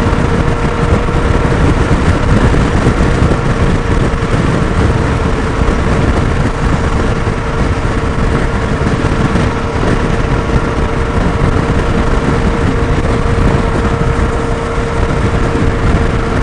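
Motorcycle cruising at a steady speed, heard from the rider's seat: steady wind rush buffeting the microphone over a constant engine drone.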